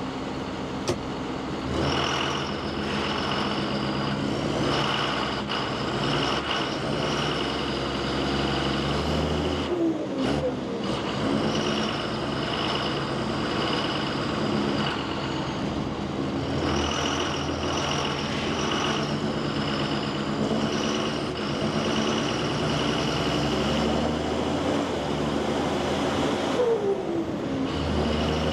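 John Deere 7530 tractor's six-cylinder diesel engine running as the tractor drives, with a steady high whine over the engine note. The engine pitch falls off twice, about ten seconds in and again near the end.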